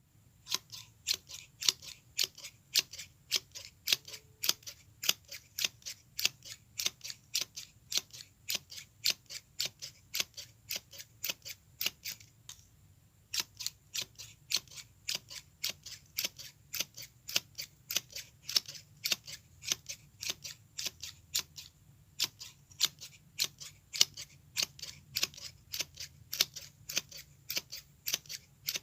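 Scissors snipping over and over in an even rhythm, about three crisp snips a second, with a pause of about a second near the middle.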